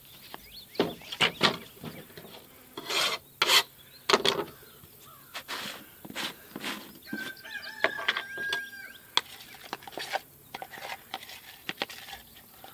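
A trowel scraping Italian plaster onto fiber-cement board in short, irregular strokes, rasping and rubbing, with a drawn-out squeak about two-thirds of the way through.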